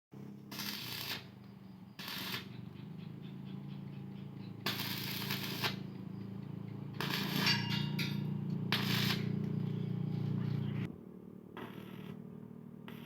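Fireworks crackling and popping in repeated bursts of rapid sputtering, the busiest stretch around seven to nine seconds in, over a steady low hum that stops near the end.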